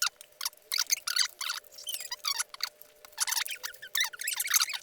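Plastic takeout containers and wrapping being handled: irregular crinkling with short squeaks.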